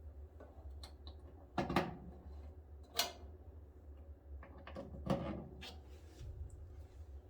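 A few sharp clicks and knocks of parts and wire terminals being handled inside an opened dryer cabinet, the loudest about two and three seconds in and again about five seconds in, over a steady low hum.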